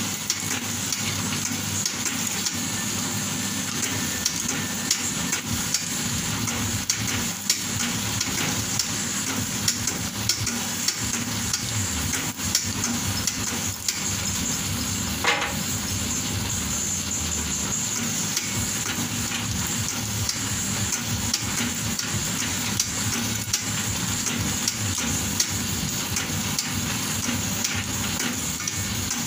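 Bamboo skewer shaving machine running with bamboo strips feeding through its rollers and cutters: a steady crackling scrape full of small clicks over a constant machine hum.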